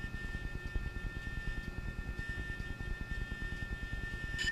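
Powered-up DJI Phantom 3 gimbal motors giving a steady high-pitched whine, with a low rapid flutter underneath, as the gimbal holds the camera level with its set screw freshly tightened.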